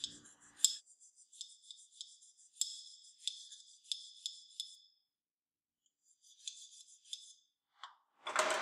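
Very fine tooth hand file deburring the edges of a small steel part: a series of faint, short scraping strokes, about two a second, then a pause and a few more strokes. A brief louder rustle near the end.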